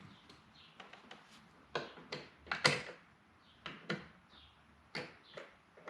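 Irregular clicks and knocks from the Volvo 740's interior door trim and its quarter-turn fastener cap being worked loose by hand, the loudest knock a little before the middle.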